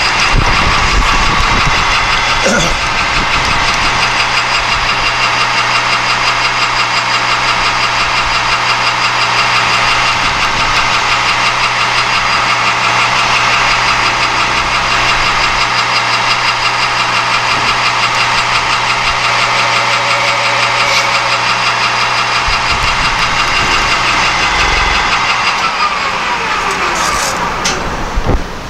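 Metal lathe running steadily with a brass workpiece turning in its chuck, a constant motor and spindle hum. Near the end the spindle is switched off and coasts down, its pitch falling as the sound fades.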